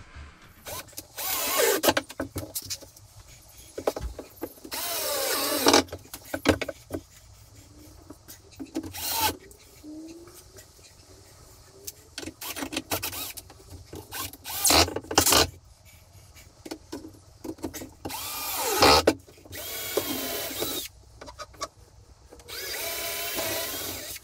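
Cordless drill driving screws into the cupboard carcasses in about seven short runs, each a second or so long, the motor's pitch sliding as some of them start. Knocks and clatter of handling the boards come between the runs.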